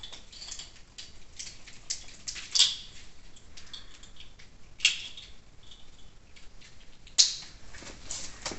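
Plastic multi-pin wiring-loom connectors being handled and pushed into their sockets on a Nissan Leaf motor assembly and a custom ECU: scattered small clicks and cable rustling, with three sharper clicks a couple of seconds apart.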